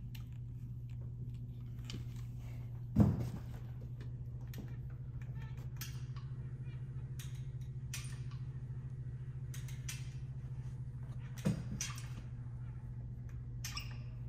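Manual caulking gun laying a bead of urethane: light clicks and handling of the gun, with two sharp knocks about three and eleven seconds in, over a steady low hum.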